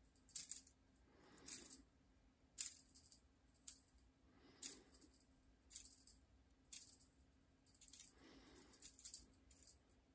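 Small jingle bell on a cat's string wand toy, shaken in short jingles about a dozen times as the toy is flicked about, with softer swishes in between.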